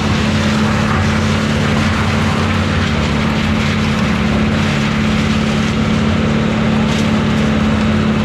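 Wood chipper's engine running steadily with a constant hum, no wood being fed through it.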